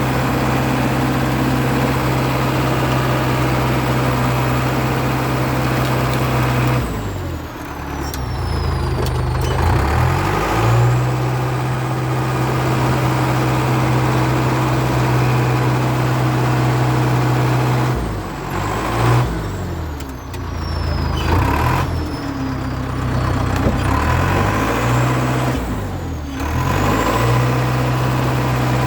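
International Harvester TD8E bulldozer's diesel engine running steadily. Its pitch drops and climbs back about four times, as if it bogs down under load and recovers.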